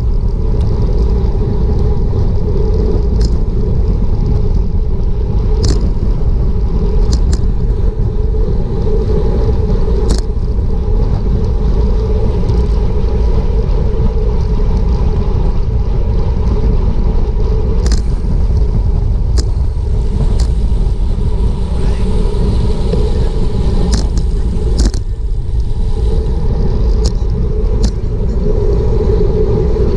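Wind rushing over a bicycle-mounted action camera's microphone at racing speed, about 25 mph, with steady road rumble underneath and scattered sharp clicks.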